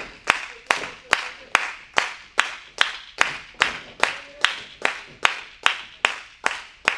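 Wrestling crowd clapping in unison: sharp, evenly timed claps about two and a half a second.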